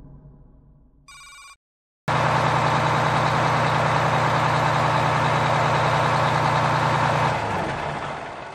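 The fading ring of a gong, then a short electronic beep about a second in. After that a bus engine runs steadily with road noise, a loud low hum that fades out near the end.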